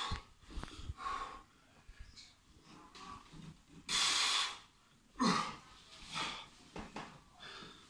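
Heavy breathing from a man straining through one-arm kettlebell shoulder presses. Two loud, hissing exhales come at the start and about four seconds in, with shorter, quicker breaths between and after.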